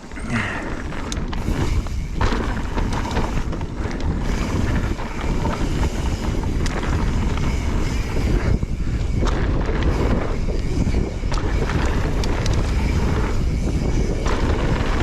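Wind rushing over the microphone while a mountain bike rides a dirt jump line, with the tyres rumbling and the bike rattling over the ground; the noise rises sharply at the start as the bike gets up to speed.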